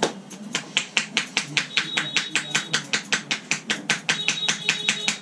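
Head massage tapotement: hands striking the head in quick, even hacking strokes, about five sharp slaps a second.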